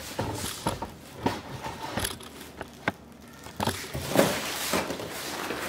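Large cardboard box being handled and pulled open: irregular rustles and scrapes of the cardboard flaps, with scattered sharp clicks and knocks.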